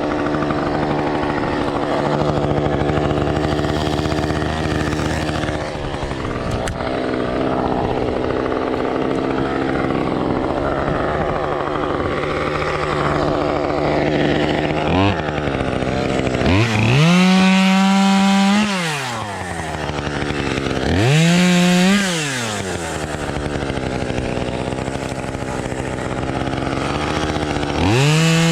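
Small two-stroke chainsaw idling steadily, then revved up to high speed several times: a quick blip, two long revs that rise and fall in pitch, and another rev starting near the end.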